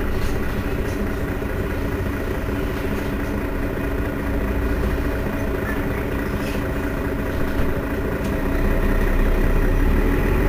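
Mercedes-Benz Citaro Facelift city bus engine running steadily at idle, growing louder about eight seconds in.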